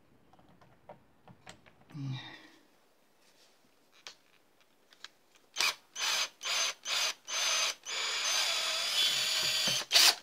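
Cordless drill/driver backing out the neck-plate screws of a bolt-on electric guitar: about five short trigger pulses, then a steady run of about two seconds near the end.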